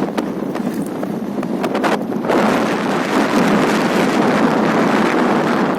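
Wind buffeting the microphone and road rush from a motorcycle coasting downhill with its engine switched off. A few light rattles early on, then the rush grows louder about two seconds in.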